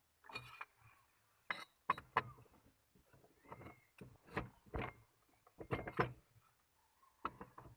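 A series of irregular knocks and clatter, about a dozen separate short hits with quiet gaps between them.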